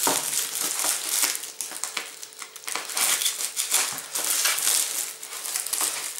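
Plastic wrapping crinkling and crackling as a parcel wrapped in a black plastic bag and clear stretch film is handled and opened by hand.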